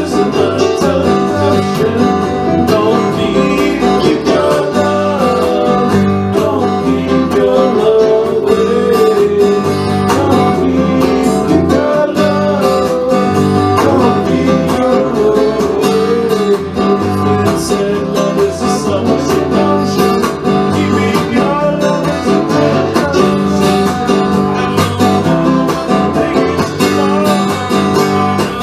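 Acoustic guitar music in a country style: a steady guitar accompaniment with a melody line weaving over it, with no singing.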